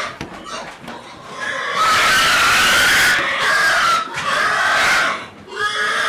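Pigs squealing loudly inside a livestock truck: a long, shrill squeal starts about two seconds in, and another comes near the end.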